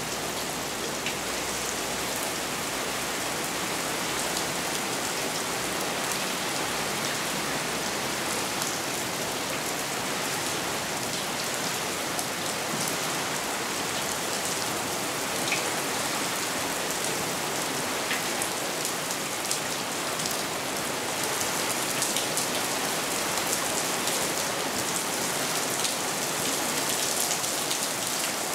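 Steady rain falling on wet stone paving, with many small drop ticks, growing a little heavier in the second half.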